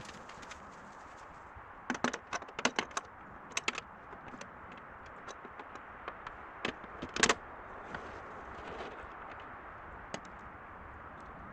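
Hand tools and metal parts clinking and rattling during work on a tractor's radiator fan assembly: a cluster of sharp clicks about two seconds in, more around seven seconds, and a single click near ten seconds, over a steady background hiss.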